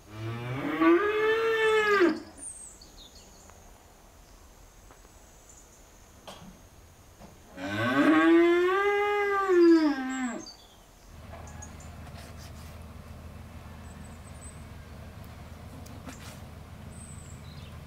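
Cattle mooing: two long calls about six seconds apart, each rising then falling in pitch. After the second call a steady low hum sets in.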